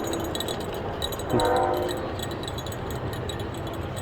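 Train horn sounding in the distance across the river: a short blast about a second in, between longer blasts, over a steady low background rumble.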